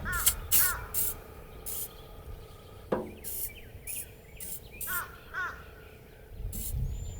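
Short hissing squirts of WD-40 aerosol sprayed into a pickup truck's tailgate lock, several times over. A crow caws twice near the start and twice again about five seconds in, and there is a single sharp knock about three seconds in.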